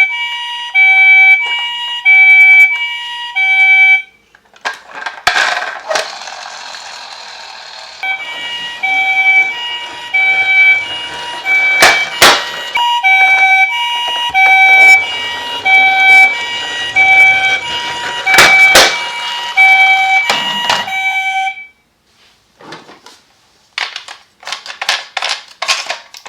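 Electronic toy ambulance siren sounding a two-tone hi-lo pattern, switching pitch about every half second. It stops about four seconds in, comes back a few seconds later and cuts off near the end, with a steady hiss and a few sharp clicks underneath.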